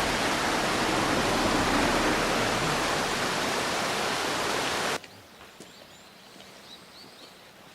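A loud, steady rushing noise that cuts in suddenly and stops abruptly about five seconds in, leaving quiet outdoor background with a few faint bird chirps.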